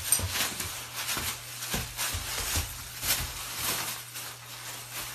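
Plastic bag crinkling and rustling in irregular crackles as a boxer dog paws at it and tugs it with its mouth.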